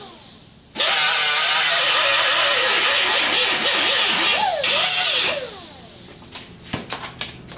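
Air-powered shop tool running on compressed air: a loud hiss with a whine that wavers under load for about four and a half seconds, then the whine falls away as the trigger is released. A few sharp clicks and knocks follow near the end.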